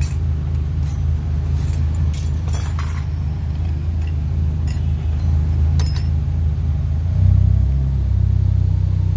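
Car engine running steadily, with a light metallic jingle of clinks in the first few seconds. About seven seconds in, the engine note shifts and gets a little louder.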